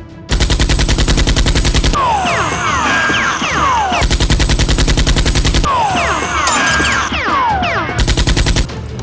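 Machine-gun sound effect: three bursts of rapid automatic fire. Between the bursts come many short falling whistles.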